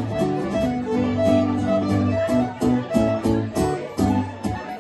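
Fiddle and acoustic guitar playing a tune together: sustained bowed fiddle notes over guitar chords, turning to short, choppy strokes in the middle.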